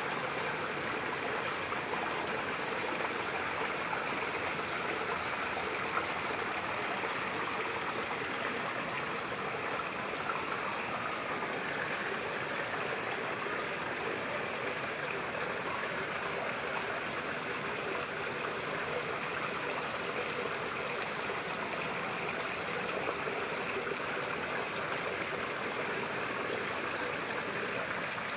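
Steady rush of running water, with faint short high ticks recurring every second or so.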